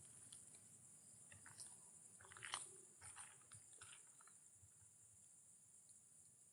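Near silence: a few faint crunching clicks over a steady high hiss.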